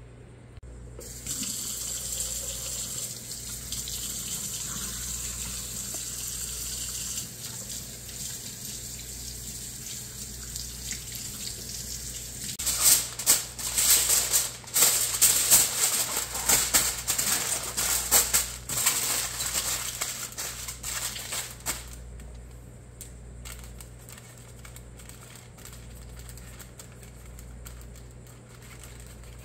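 A tap runs steadily for about eleven seconds, then aluminium foil crinkles and crackles loudly for about nine seconds as it is folded and wrapped around a package, and then fades to a quiet stretch.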